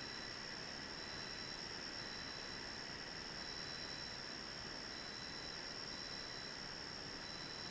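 Insects, likely crickets, calling steadily: a continuous high, even buzz with a fainter tone that breaks off and returns every second or so, over a steady hiss.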